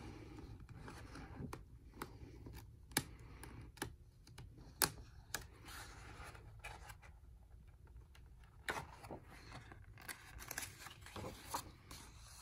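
Faint paper rustling and scraping as the pages of a large hardcover picture book are handled and turned, with scattered sharp clicks and taps, the loudest about 3 and 5 seconds in.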